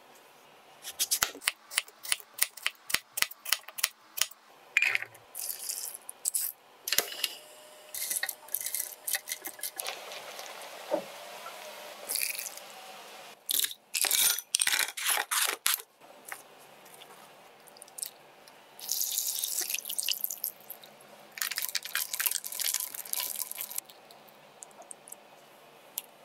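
Kitchen handling sounds: quick clicks and cracks from a plastic ice-ball tray, then ice cubes and frozen peach-juice balls clattering into a glass bowl, with stretches of liquid pouring.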